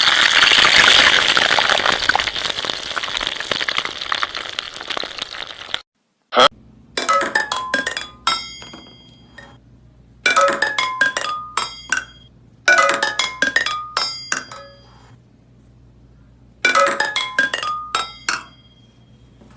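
Hard glassy objects clinking: four clusters of quick sharp strikes, each leaving several short ringing tones. Before them comes about six seconds of dense crackling noise that stops abruptly, then a single sharp click.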